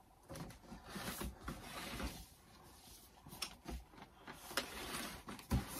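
Cardboard box being handled and opened: scraping and rustling as the lid is worked loose and slid off, with small taps and one sharp knock near the end.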